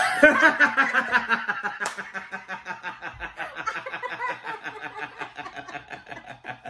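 A man and a woman laughing hard together, breaking out suddenly and loudly at the start and then carrying on in rapid pulsing bursts that slowly fade.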